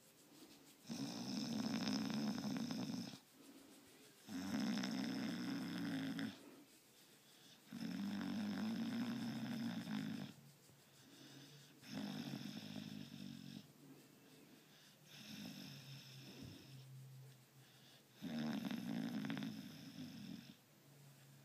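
Bulldog snoring in her sleep: a long, low snore about every three and a half seconds, six in all, the fifth weaker, with quieter breathing between. It is the purr-like rumble that the owner jokingly calls purring.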